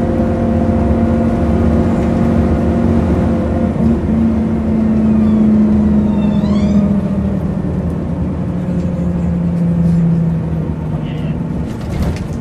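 Volvo Citybus diesel engine running while the bus drives, heard from inside the passenger saloon; its note holds steady and then falls in pitch about eight seconds in as the bus eases off. A brief high squeal comes about six and a half seconds in, and a knock near the end.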